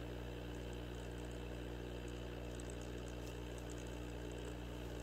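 Aquarium air pump running as the aerator of a homemade nickel-plating tank: a steady electric hum with faint bubble ticks from the air stream in the solution.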